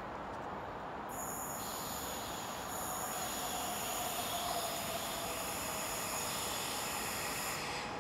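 Flytoget Class 71 electric multiple unit running on the curved station tracks. High-pitched wheel squeal and hiss come in about a second in and hold steady.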